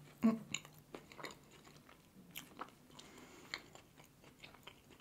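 A bite into a soft, strawberry jam-filled glazed doughnut, followed by chewing. The loudest sound is a sharp mouth sound about a quarter second in, then small wet clicks and soft chewing noises.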